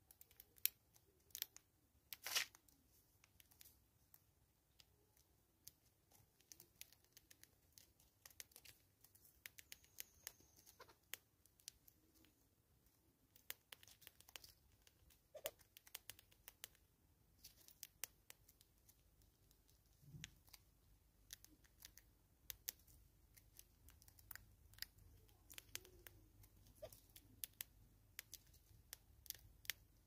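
Faint, irregular sharp clicks and crunches of feeding at a seed feeder: a southern yellow-billed hornbill picking seed from a plastic jar and a bush squirrel nibbling seed. A faint low rumble comes in about two-thirds of the way through.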